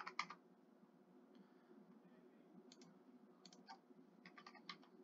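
Faint computer keyboard keystrokes as numbers are typed, scattered single clicks and small clusters, a few right at the start and more from about two and a half seconds in.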